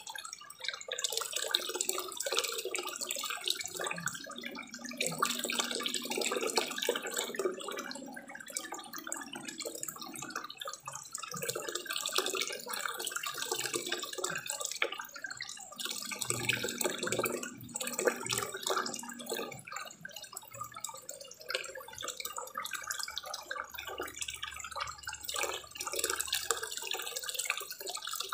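Water pouring from a small spillway waterfall into a koi pond, splashing and trickling continuously.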